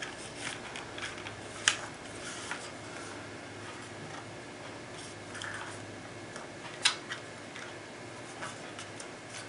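Handling noise: a few scattered light clicks and taps from objects being picked up and moved by hand, with two sharper clicks, one just under 2 s in and one near 7 s in, over a faint steady hum.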